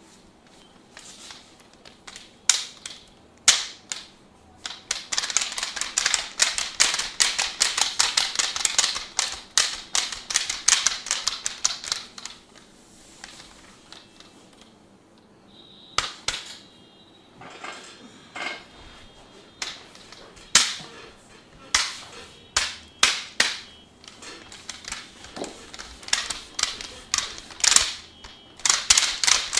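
Percussive massage: fast runs of sharp taps and slaps on the body, with scattered single strikes between the runs and a short lull around the middle.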